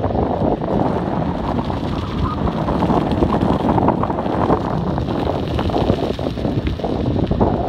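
Wind buffeting a phone's microphone while riding a bicycle: a loud, uneven low rushing noise.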